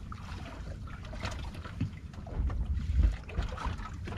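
Wind buffeting the microphone over water lapping against a small drifting boat, with a stronger gust about three seconds in and a few light knocks.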